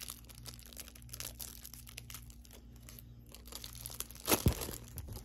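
Crinkling of a Pokémon card's plastic wrapper being picked and torn open by hand, in many small crackles, with one louder crackle about four seconds in.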